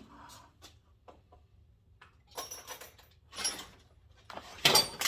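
Rustling and clattering of loose items and debris being cleared off the top of a plastic tool box by hand, in a few short bursts with a sharper clatter near the end.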